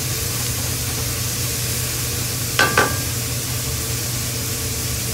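Minced pork with onion, garlic and tomato sizzling in a nonstick wok as it is stirred with a wooden spatula, over a steady low hum. Two quick ringing clinks come about two and a half seconds in.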